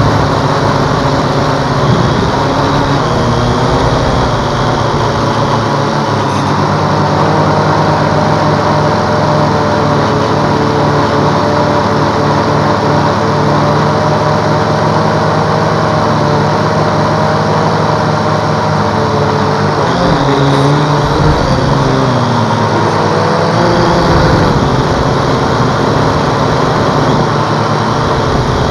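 Holy Stone HS300 quadcopter's motors and propellers buzzing steadily in flight, recorded from a camera on the drone itself. The pitch wavers up and down a few times about two-thirds of the way through as the throttle changes.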